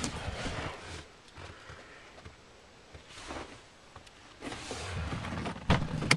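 Handling and rustling noise as the camera is moved about inside a parked car, quiet in the middle. Near the end a sharp click comes as a hand pulls the inner door handle of the Audi A4, releasing the door latch.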